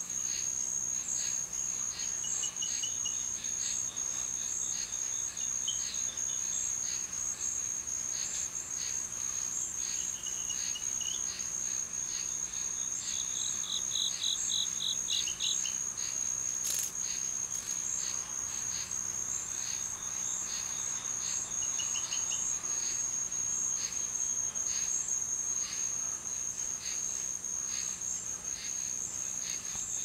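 Night-time insect chorus: a steady high-pitched trill, with softer chirps repeating about twice a second and a brief run of rapid, louder chirps around the middle.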